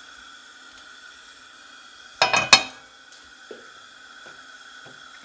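Oil heating in a frying pan, a faint steady hiss, with a short clatter a little over two seconds in and a few light clicks after it.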